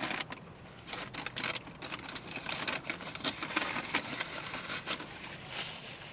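A person chewing a mouthful of burger close to the microphone: irregular mouth clicks and smacks.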